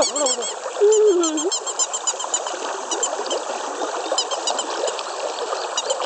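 River current rushing steadily over rocks, with runs of short high chirping calls throughout and a brief wavering whine about a second in.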